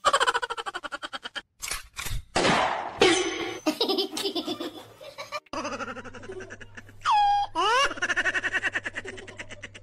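Bursts of human laughter in quick rhythmic pulses, spliced in several short pieces with abrupt cuts. About seven seconds in, a cat gives a drawn-out yowl that falls and then rises in pitch.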